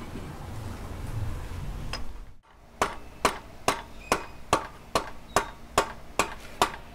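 Motorcycle rear wheel turned by hand on its axle, giving a sharp tick about twice a second at a steady rate from about a third of the way in. Before that, low rustling from handling the wheel.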